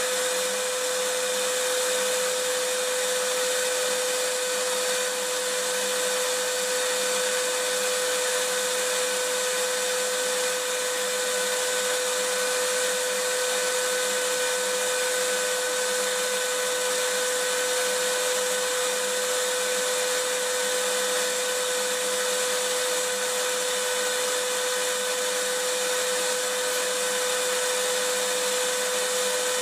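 Vacuum cleaner running steadily: a constant rushing hiss of air with a steady motor whine, unchanging throughout.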